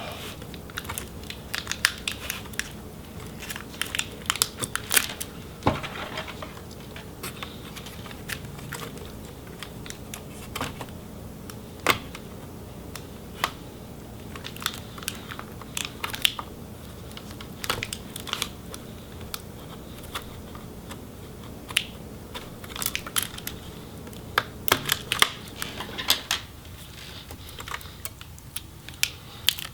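Scattered sharp plastic clicks, taps and crinkly rustles from handling the internals of an MSI GT72 laptop. The battery pack's connector is being worked loose and the pack lifted out. Some clicks come in quick clusters, around 4–5 seconds in and again around 23–26 seconds.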